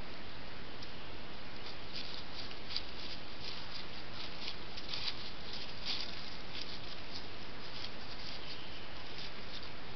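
Roe deer walking through dry fallen leaves: a run of light, irregular rustling footsteps, densest in the middle, over a steady hiss.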